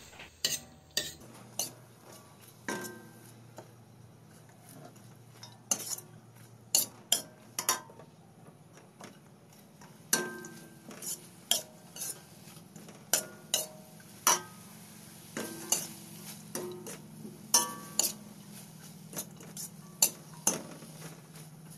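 Spatula stirring and tossing vegetables in a wok: irregular clacks and scrapes against the pan every second or so, some with a brief metallic ring.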